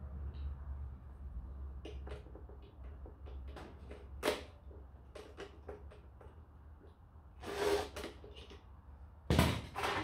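Scattered clicks and knocks of plastic and metal photocopier parts being handled during disassembly, with a sharp knock about four seconds in, a brief scrape later, and a louder clatter near the end.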